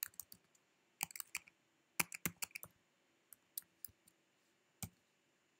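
Computer keyboard typing: a few short runs of quick keystrokes with pauses between them, ending in one last keystroke about five seconds in.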